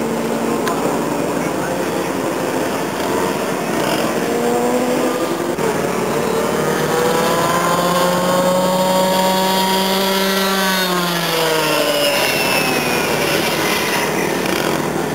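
Comer 80 two-stroke cadet kart engine at speed: a high-pitched buzz that climbs steadily in pitch for several seconds, then drops away quickly about eleven seconds in as the kart goes by or lifts off.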